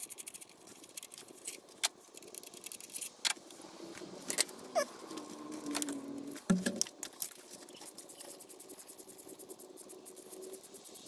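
Hand tools at work on an engine's front end: runs of fine rapid clicking, scattered metal clinks and taps, and one louder clunk about six and a half seconds in.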